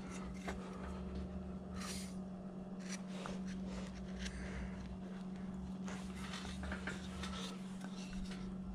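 Faint, scattered slicing and scraping strokes of a hand-held V-tool cutting into a carved wooden figure, over a steady low hum.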